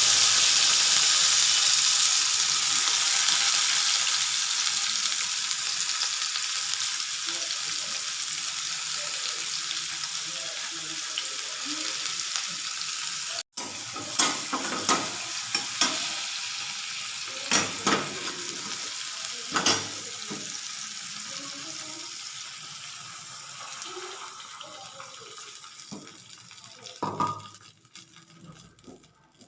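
Food frying in hot oil in a pan: a loud sizzle that starts suddenly and slowly dies down as it cooks, broken once by a short gap, with scattered clicks of a spatula against the pan as it is stirred.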